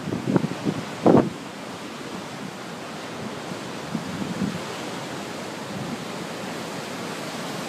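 Ocean surf breaking against a rocky shore, a steady rushing noise, with wind buffeting the microphone in a few brief loud gusts about a second in and again, weaker, around four seconds in.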